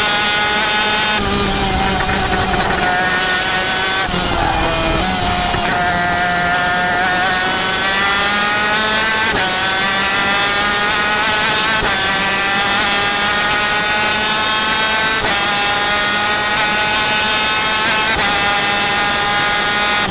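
Yamaha TZ250 two-stroke racing engine of a superkart at full throttle. Its pitch climbs steadily under acceleration and drops sharply at each gear change or lift, four or five times.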